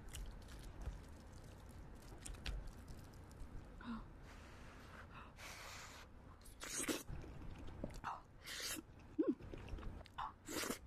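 Eating creamy carbonara spaghetti: faint clicks of chopsticks and a wooden spoon, then from about four seconds in, several short, noisy slurps of the noodles.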